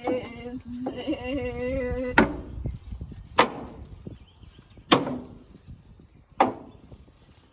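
A child's voice making a sustained, wavering buzzing hum for about two seconds, then a series of sharp knocks with a short ringing tail, about one every second and a half.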